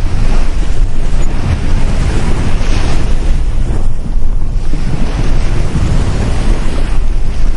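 Sea surf washing onto a beach: a loud, continuous wash with a heavy low rumble. A wave surges about two and a half seconds in and eases off near four seconds, then the wash builds again.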